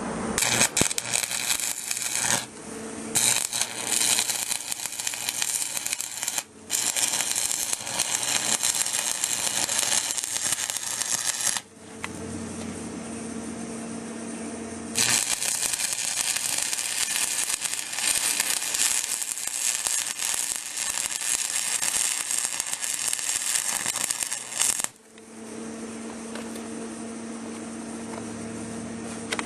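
Stick-welding arc from a Forney 235 AC/DC welder burning a 6011 electrode on steel: a harsh, steady crackle that starts just after the beginning, breaks off a few times, runs again for about ten seconds after a three-second pause, and stops about five seconds before the end. In the pauses a steady electrical hum is heard.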